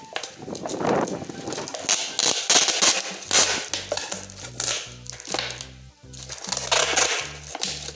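Packing tape being pulled off its roll in a series of short rips, with a thin plastic bottle crinkling as the tape is wrapped around it. Background music plays throughout, its bass line coming in about three seconds in.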